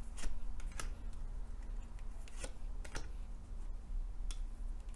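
Lenormand cards being laid down on a table: about five short, sharp clicks spaced irregularly, over a faint steady hum.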